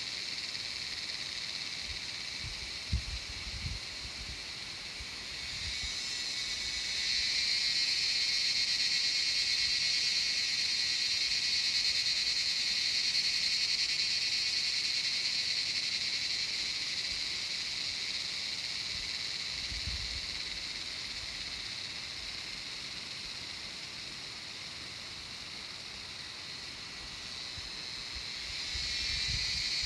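Insects buzzing in a steady, high-pitched drone that the uploader takes for wood-boring beetles; it swells louder about six seconds in, eases off, and swells again near the end. A couple of brief low bumps come about three seconds in.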